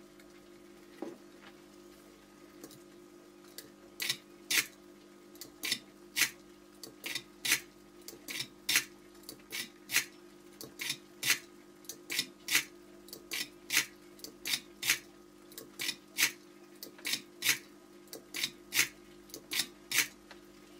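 Canon A-1 mirror box mechanism worked by hand, its freshly lubricated levers snapping back and forth in a run of sharp metallic clicks, about two a second, starting about four seconds in. This is a test of the fix for the mirror-box squeak known as the Canon cough.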